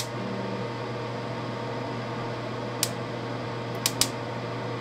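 Ventilation fan running with a steady hum, with three sharp clicks in the second half, the last two close together.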